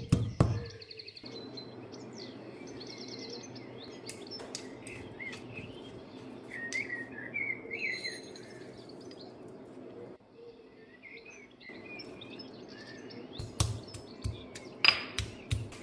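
Small birds chirping and trilling over a steady low hum. Near the end come a run of sharp knocks.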